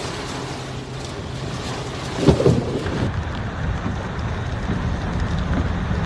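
Steady roar of heavy storm rain and wind, then rushing floodwater surging down a street. A loud thump about two seconds in is the loudest moment.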